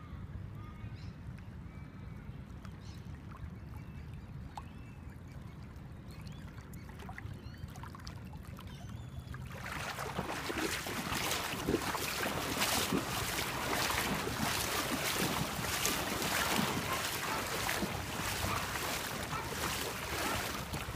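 Wind rumbling on a phone microphone at the water's edge, becoming a louder, rougher hiss of wind and lapping water about halfway through.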